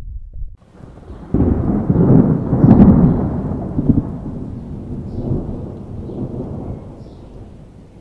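A thunderclap breaks a little over a second in, is loudest around three seconds, and then rolls away in a long, slowly fading rumble.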